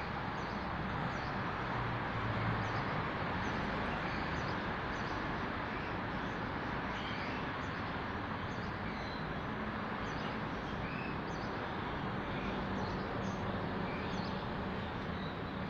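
Steady outdoor background noise with a low hum, with scattered faint bird chirps throughout.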